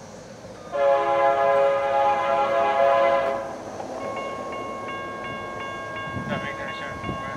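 Freight locomotive's multi-chime air horn sounding one long blast for about three seconds, starting about a second in. After it, a few steady high tones carry on more quietly, some of them switching on and off.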